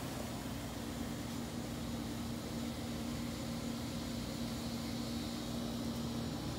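Steady background noise with a low, steady machine-like hum that stops just before the end.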